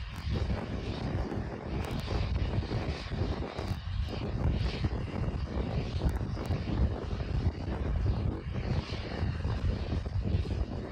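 Starship prototype's Raptor rocket engines firing during ascent: a steady, rough rumble, heaviest in the low end.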